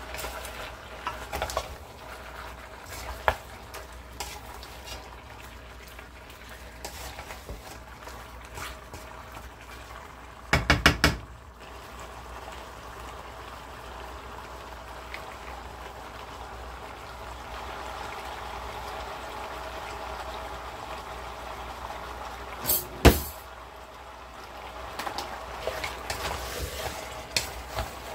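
Wooden spoon stirring and scraping chicken pieces in a stainless-steel pot over a faint frying hiss, with scattered small clicks. A quick run of loud knocks comes about ten seconds in and one sharp knock a little after twenty seconds, as the pot, spoon and colander are handled.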